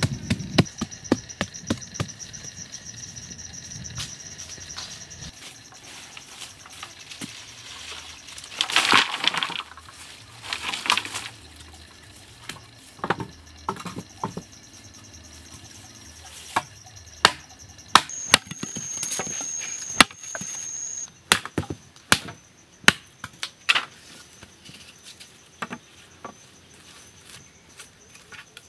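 Wooden poles and sticks being handled on dirt ground: scattered sharp wooden knocks and taps, with a few longer stretches of scraping and rustling. A steady high insect buzz runs underneath.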